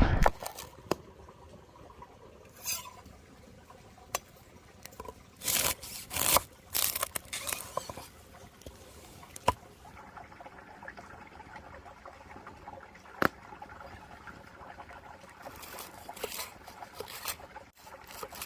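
Scattered short scrapes and clicks with some liquid trickling and pouring, typical of food being prepared by hand.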